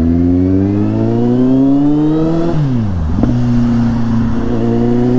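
Kawasaki Z800's inline-four engine pulling away under throttle. The revs climb steadily for about two and a half seconds, dip sharply and recover, then hold steady.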